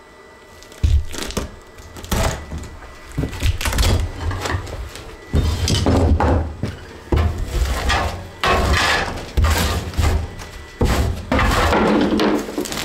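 Rotted wooden floor framing being pried and broken out with a pry bar: an irregular run of cracks, crunches and heavy thuds, with longer splintering spells near the end. Background music underneath.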